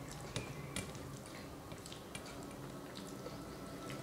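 Soft wet eating sounds: chewing with small mouth clicks and fingers squishing rice with curry on a steel plate, with a couple of sharper clicks in the first second.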